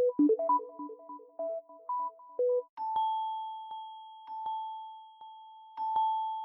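Samsung Galaxy phone ringtones playing. First a quick melody of short electronic keyboard-like notes, then, nearly three seconds in, a cut to a different ringtone: a single bell-like ding struck again and again, each ring fading away.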